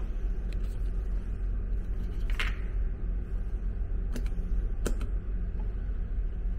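Steady low drone of the car ferry Kitakami's machinery heard inside a passenger cabin. Over it come a few light clicks and knocks, the loudest about two and a half seconds in.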